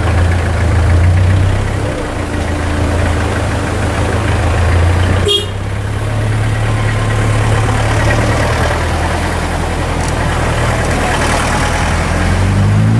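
Car engine running at low speed, heard from inside the cabin as a steady low drone, with a brief break about five seconds in and the pitch rising a little near the end as it picks up revs.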